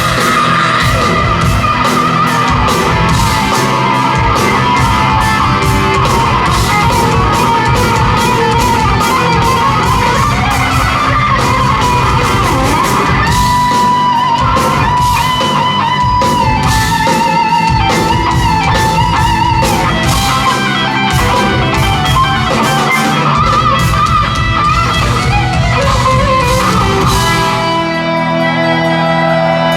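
Rock band playing live in an instrumental stretch: electric guitars over bass and pounding drums, with a held, bending lead guitar line in the middle. Near the end the drums drop away and sustained guitar chords ring on.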